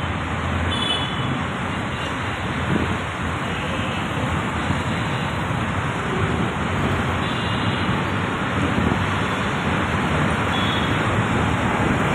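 Steady road traffic noise with wind buffeting the microphone.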